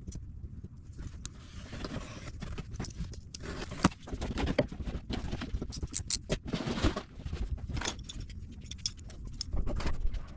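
Packaging being handled and unpacked: rustling and scraping, with many irregular clicks and knocks.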